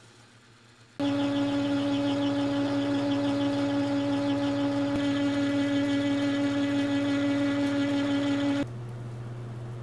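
Metal lathe running: a loud steady whine with a fixed pitch cuts in about a second in, then drops suddenly to a quieter, lower hum near the end.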